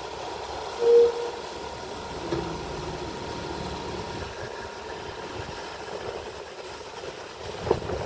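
Diesel engines of a crawler bulldozer and dump trucks running steadily at a land-fill site, with a short, loud beep about a second in.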